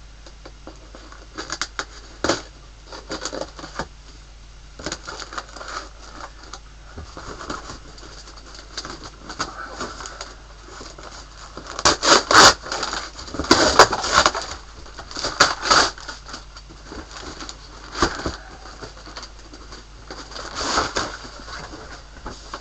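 Packaging being unwrapped by hand: irregular rustling and crinkling of wrapping and cardboard, loudest in a run of handling about halfway through and again briefly near the end.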